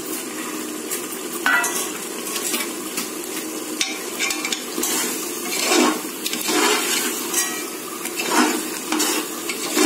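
Tomato-onion masala frying in oil in a large metal pot, cooked to the stage where the oil separates, with a metal ladle stirring and scraping against the pot about once a second from a second or so in.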